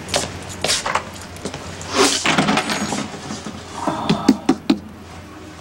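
Handling sounds of small hard objects: keys clinking and things knocked and set down on a table, with a cluster of sharp clicks about four seconds in.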